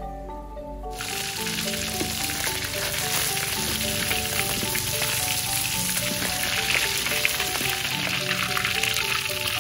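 Indian mackerel frying in hot oil in a wide wok: a steady sizzle that comes in about a second in, while the fish is scooped out onto a perforated strainer. Background music plays a stepped melody under it.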